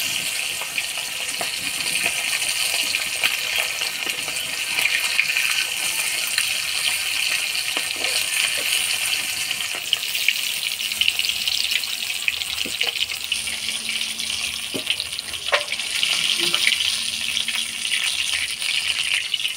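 Pieces of fish frying in hot oil in a kadai: a steady sizzle with scattered crackles and pops.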